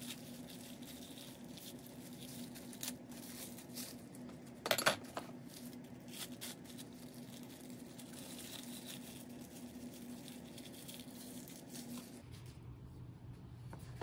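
Hands unwrapping a metal door-lever lock from a thin white wrapping sheet: soft rustling and crinkling of the wrap, with a sharp knock of the metal parts about five seconds in. A faint steady hum stops near the end.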